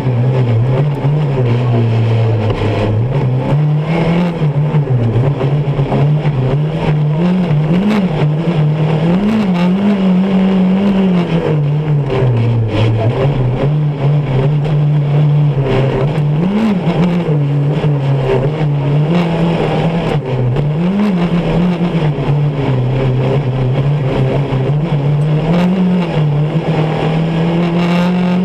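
Off-road rally buggy's engine running hard at racing speed, heard from inside the cockpit. Its note rises and falls continually, with several brief jumps in pitch as the throttle is blipped and released.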